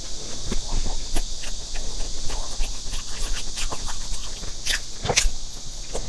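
Close-miked chewing and mouth sounds of a person eating soft layered cream cake: irregular wet clicks and smacks, with a couple of sharper clicks about five seconds in, over a steady hiss.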